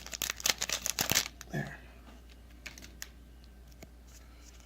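Foil booster pack wrapper crinkling and tearing open in a quick run of sharp crackles for about a second and a half, then a few faint ticks.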